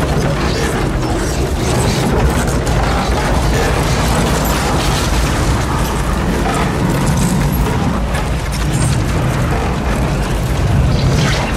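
Loud, steady rush of tornado wind passing overhead, with debris clattering and banging throughout; film sound design with a music score mixed in.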